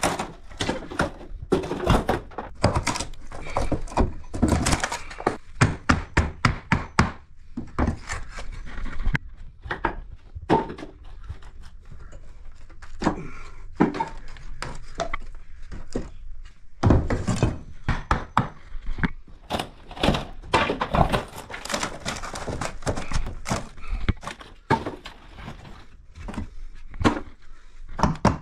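Wooden wall panelling and timber framing being hammered and pried off by hand with a claw hammer: repeated irregular thuds, knocks and the crack of splintering wood.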